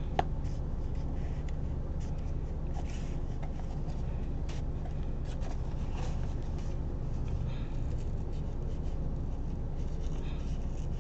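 Faint scratching and small clicks of fingers prying a wax seal up off a paper band, the paper ripping a little, over a steady low hum.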